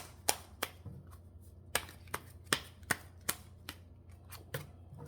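Tarot cards being shuffled by hand: a string of sharp card slaps and taps, two or three a second, coming in short groups.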